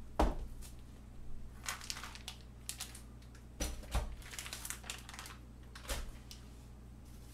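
Plastic bag of raw chicken pieces crinkling and rustling as it is handled, with a few thumps as it is set down.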